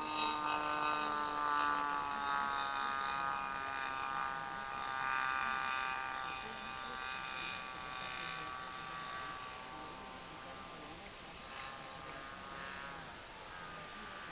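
O.S. 91 FX two-stroke glow engine of an RC model airplane buzzing in flight, its steady note sinking slightly and growing fainter as the plane flies away.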